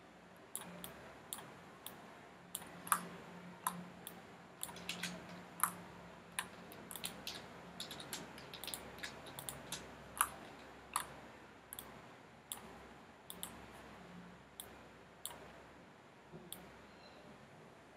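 Computer mouse and keyboard clicks, irregular and sharp, dozens of them, some in quick pairs, over a faint low hum.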